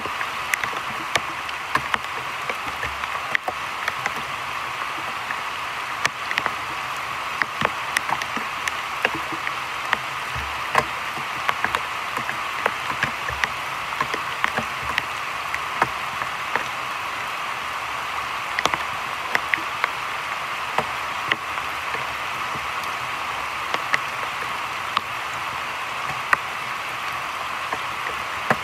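Heavy rain falling on a creek's surface: a steady hiss dotted with many sharp, scattered drop hits.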